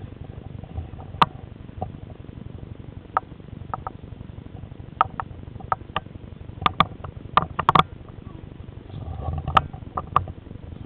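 Handling noise from a small camera mounted on a wooden bokken as the sword is moved: irregular sharp clicks and knocks, several in quick succession a little past the middle, over a low rumble.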